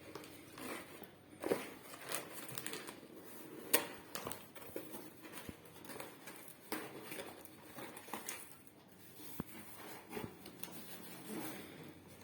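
Plastic packaging rustling and crinkling while small parts are taken out of a new stainless steel pressure cooker, with a few light knocks and clicks of handled pieces.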